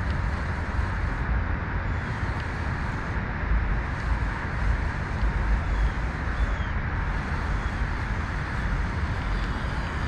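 Steady noise of road traffic, a constant low rumble with no single vehicle standing out.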